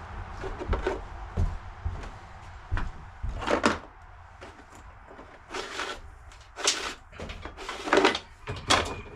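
Handling noises from work on a scooter: irregular clicks, knocks and short scrapes of parts and cable being moved, with louder clacks about three and a half, seven and eight seconds in.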